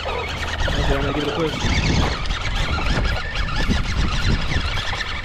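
Small RC truck's electric motor and gearbox whining as its tyres spin and scrabble on loose, steep dirt and rocks, crunching gravel, failing to climb the section.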